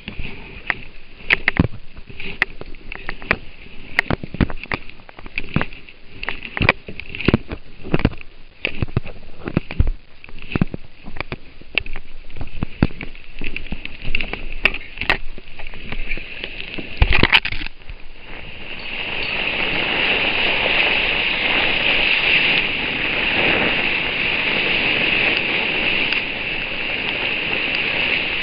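Irregular knocks and clicks for the first half, then, from about two thirds of the way in, a steady loud rush of water spraying past a kayak hull as it moves fast across the water.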